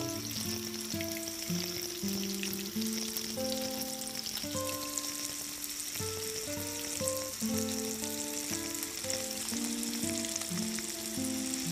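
Hot oil sizzling steadily in a small pan of tempering as dried red chillies and curry leaves fry, under soft instrumental background music that plays a melody of held notes.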